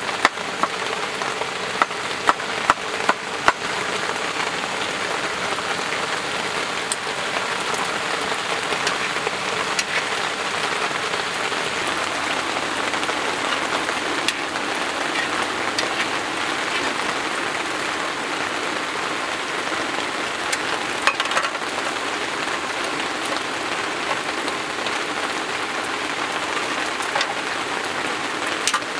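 Steady rain falling, with a handful of sharper drop taps in the first few seconds and a couple more past the two-thirds mark.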